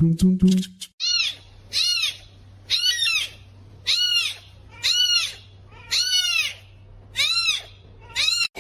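A small animal giving repeated high-pitched calls, each rising then falling, about one a second, over a steady low hum. Background music is heard briefly at the start.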